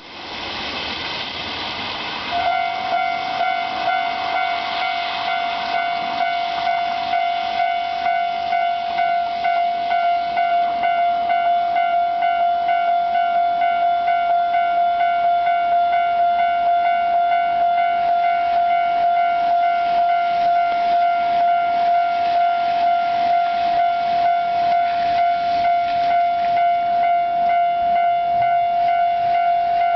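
Japanese railway level-crossing alarm ringing its repeated electronic warning tones. The crossing has two alarm units, and one sounds lower than the other. The ringing becomes louder and steadier about two seconds in.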